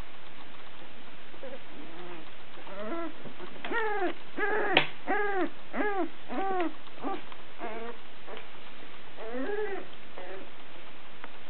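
Sussex Spaniel puppies about two weeks old whimpering: a run of short cries, each rising and falling in pitch, about two a second through the middle, with one sharp click among them.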